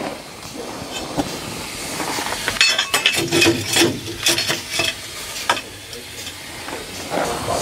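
Steel firing shovel scraping and clinking against the grate and firebox mouth of a one-foot gauge steam locomotive as hot ash and embers are shoveled out of the fire. It comes as a run of scrapes and metallic knocks through the middle, over a steady hiss.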